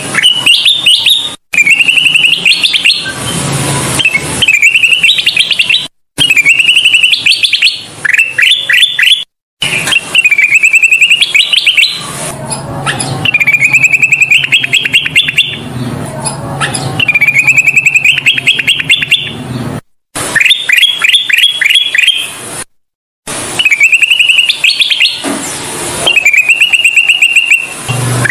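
Kutilang emas (a bulbul) singing over and over, each phrase a short warble followed by a quick run of repeated notes, a new phrase every few seconds. Brief total dropouts between some phrases show the song has been cut and looped.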